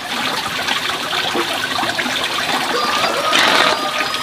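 Water running or trickling, a steady hiss. In the second half a thin steady high tone sounds alongside it.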